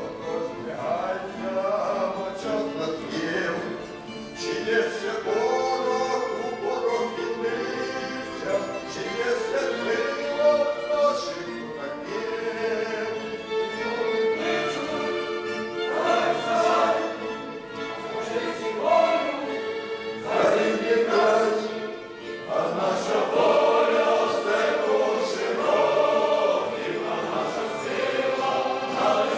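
Male vocal ensemble singing a Ukrainian Cossack song in phrases, accompanied by violins and plucked folk strings.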